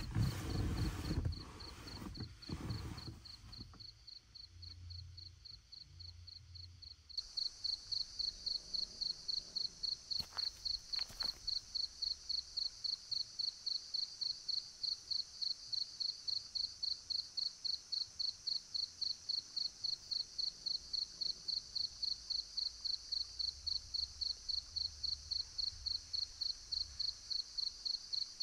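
Crickets chirping in a fast, even rhythm, louder from about seven seconds in. A few low rustles and bumps in the first three seconds.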